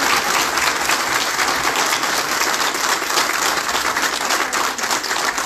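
An audience applauding, many people clapping at once.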